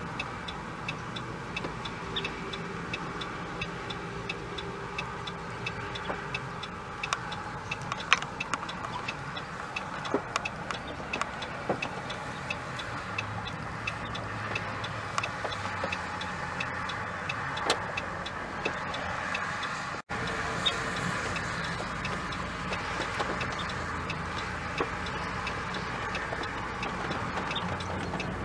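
Strong thunderstorm wind rushing steadily through tall grass and trees, with scattered light ticks. The sound breaks off for an instant about two-thirds of the way through.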